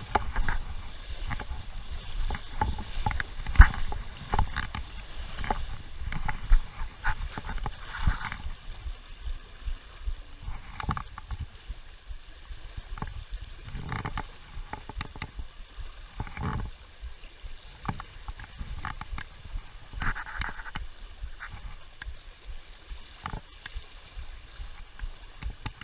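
River water running, with irregular knocks and splashy clatter throughout and a low wind rumble on the microphone.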